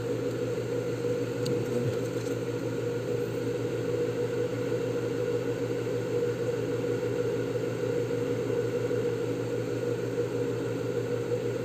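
A steady machine hum: a small motor running evenly, with several fixed low tones and no change throughout.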